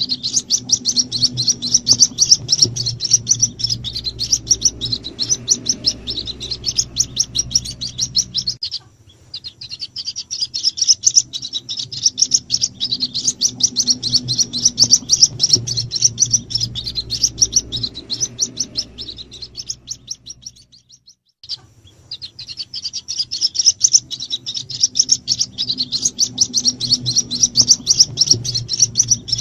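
White-breasted waterhen chicks peeping in a rapid, continuous, high-pitched stream: a lure call meant to draw in the adult birds. The calling breaks off briefly twice, about nine and twenty-one seconds in.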